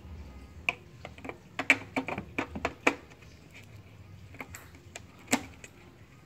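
Sharp plastic clicks and knocks as an LED bulb socket is pushed and twisted into the back of a Toyota Agya tail-lamp housing. A quick run of clicks in the first three seconds, then two more later, the second of them loud.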